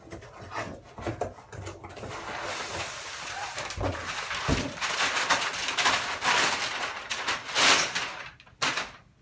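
Skateboard deck packaging being opened by hand: rustling and crinkling with tearing, and a couple of dull thumps about four seconds in.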